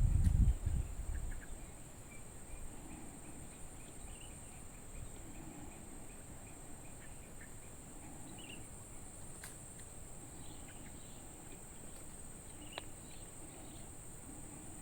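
Insects buzzing in a steady, high-pitched drone, with faint scattered chirps. A low rumble hits the microphone in the first second or so.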